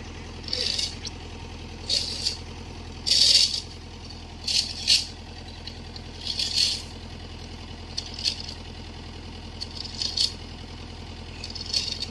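Mini excavator engine running steadily, with a string of short irregular rattling noises from the machine as it works in the mud.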